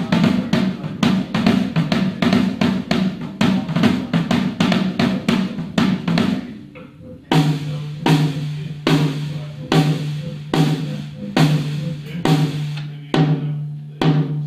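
Band music led by a drum kit: a fast beat of snare and bass drum over a low bass line. About six seconds in the playing dies away, and a second later a new section starts with a slower, even beat over a steady held low note.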